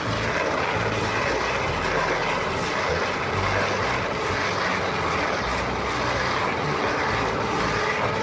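A heavy machine's engine running steadily with dense mechanical working noise, without pauses or distinct impacts.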